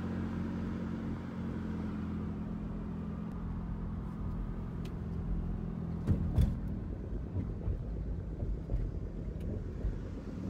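Car heard from inside the cabin while driving: a steady low engine and road drone, with a couple of sharp thumps about six seconds in, after which the rumble turns rougher.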